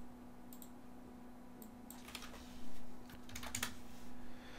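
Quiet computer mouse and keyboard clicks, a few single clicks and then a quick run of several about three and a half seconds in.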